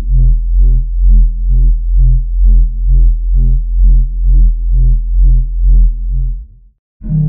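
Synthesized low drone tone with a deep bass, swelling and fading in a steady pulse about twice a second, then cutting off about six and a half seconds in. A different, brighter sustained drone starts just before the end.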